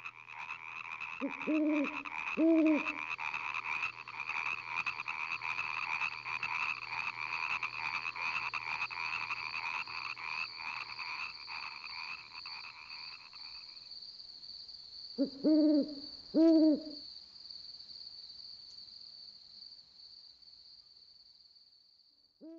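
Jungle-night nature-sound recording: a dense chorus of frogs and crickets with a steady high insect trill, and a night bird's hooting calls in pairs, once near the start and again about 15 seconds in. The frog chorus stops about 14 seconds in, leaving the high trill and the hoots.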